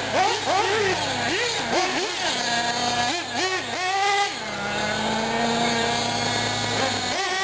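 Small nitro engines of 1/8-scale R/C buggies revving up and down again and again as they lap a dirt track, each rise and fall lasting a fraction of a second. From about four and a half seconds in, one engine holds a steady pitch for a couple of seconds before the revving resumes. A steady low hum runs underneath and stops just before the end.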